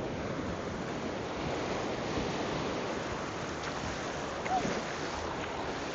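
Ocean surf washing steadily onto the beach, with a brief short squeak about four and a half seconds in.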